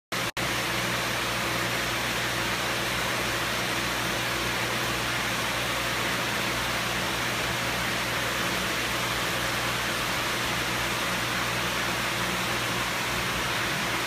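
Nutrient solution pouring steadily over a waterfall weir into a stainless-steel hydroponic channel, a constant rushing splash, with a low steady hum underneath.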